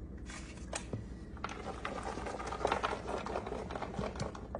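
Chopped bell pepper and onion being shaken from a clear plastic container into a plastic tub of chopped vegetables: a light, irregular rustle with scattered soft clicks.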